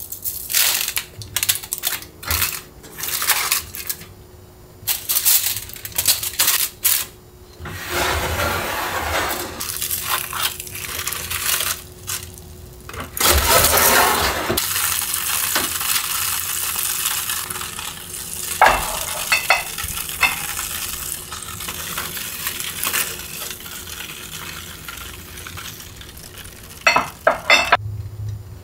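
A seasoning shaker shaken in short bursts over food in foil trays, then a kitchen fish-grill drawer sliding, followed by a steady sizzle. A few sharp clinks near the end.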